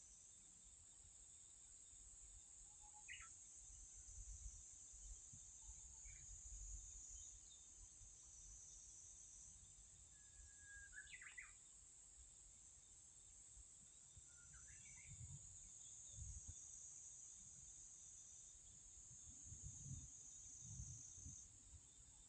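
Faint outdoor ambience: a steady high-pitched insect drone, with a handful of short bird chirps scattered through. Low wind rumble on the microphone comes and goes, strongest about two-thirds of the way through and again near the end.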